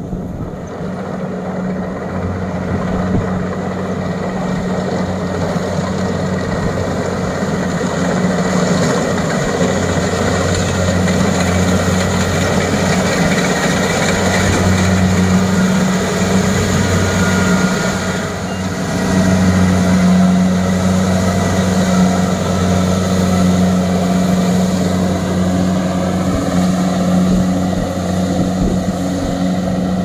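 Kubota DC-70 Plus rice combine harvester running steadily while harvesting, its engine giving a constant low hum that dips briefly a little past the middle.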